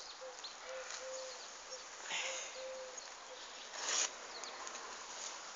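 A dove cooing: a low note repeated in short held phrases through the first three seconds or so. About four seconds in there is a brief, louder rustling noise.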